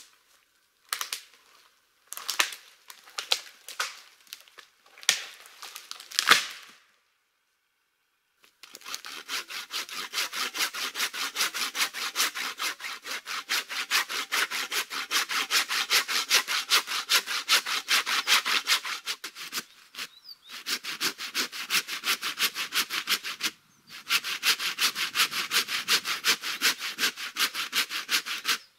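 Dead pine wood cracking and snapping in several loud, irregular bursts, then a hand saw cutting through a fallen pine trunk with fast back-and-forth strokes, stopping briefly twice.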